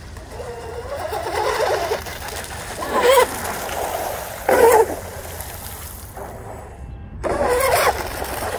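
Twin brushless electric motors of an RC drag boat whining as it runs fast across the water, the pitch rising and falling with the throttle. There are louder bursts about three, four and a half and seven and a half seconds in.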